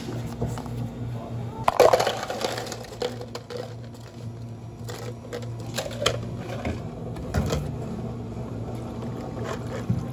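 Ice cubes clattering into a tall plastic cup at a cafe counter, with the loudest rattle about two seconds in and scattered clinks and knocks after it. A steady low machine hum runs underneath.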